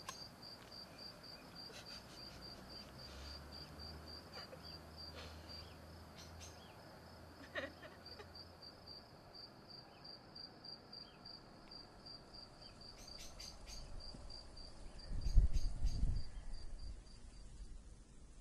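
A cricket chirping steadily, short high chirps about three a second. A loud low rumble, the loudest sound, comes about fifteen seconds in.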